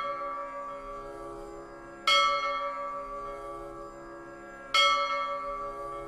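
A deep bell struck twice, about two seconds in and again near the end, each strike ringing on and slowly fading. At the start the ring of an earlier strike is still dying away.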